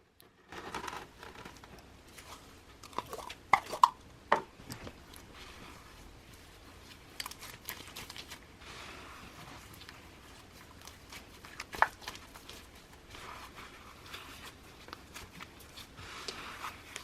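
Hands kneading and stretching sticky clear glue slime loaded with glitter, giving scattered sticky clicks and crackles. A few louder pops come about four seconds in and again near the middle.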